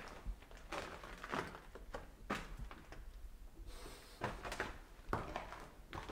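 Irregular series of short knocks and scuffs, one or two a second, with a pause about three seconds in.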